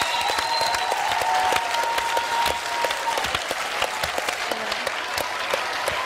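A large audience applauding, with dense, continuous clapping.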